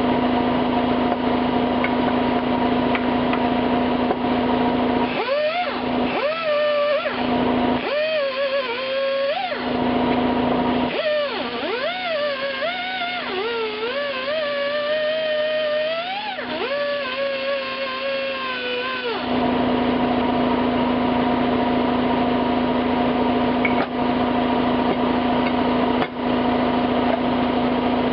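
Electric motor of a power wire-wheel tool running at a steady pitch while rust and grime are cleaned off cast-iron vise parts. For a stretch in the middle, a wavering, gliding pitched sound replaces the steady hum, then the hum returns.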